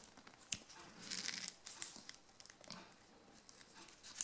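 Close handling noise: scratchy rustling of plastic and a watch strap as fingers work a new wristwatch on its display cushion. A few light clicks come through, with the busiest rustling about a second in.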